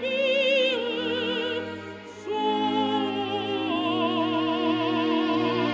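Background music: a singer holding long notes with strong vibrato over a sustained orchestral backing, in an operatic style, with a brief dip and a new phrase about two seconds in.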